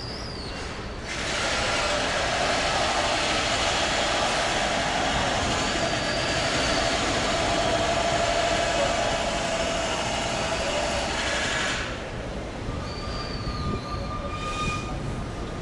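A loud, steady mechanical rushing noise switches on suddenly about a second in and cuts off just as suddenly about eleven seconds later. Birds chirp before and after it.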